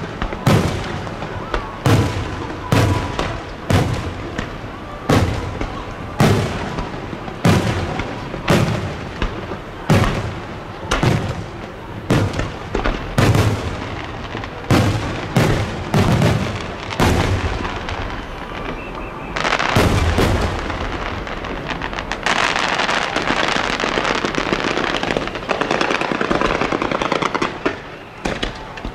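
Aerial firework shells bursting overhead in quick succession, a boom about every second. About twenty seconds in, the booms thin out and a dense, steady crackling takes over.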